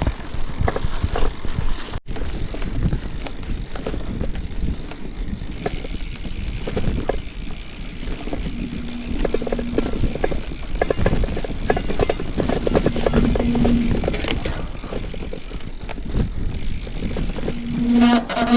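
Fat-tyre mountain bike ridden over a forest trail: tyres rolling over the ground with a steady stream of small knocks and rattles from bumps.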